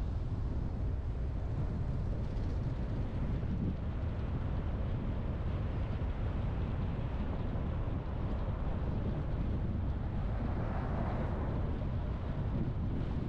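Car driving on the road: a steady low rumble of tyres and engine, with a brief swell of hiss about ten seconds in.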